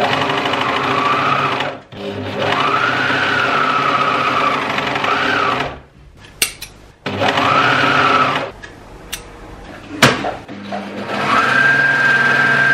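Electric sewing machine stitching in four bursts of a few seconds each, the motor's pitch rising as each burst starts, with a few clicks in the pauses between.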